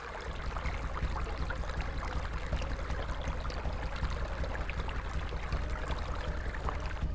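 Shallow stream trickling over rocks, with scattered small water ticks, over a low, rapidly pulsing rumble.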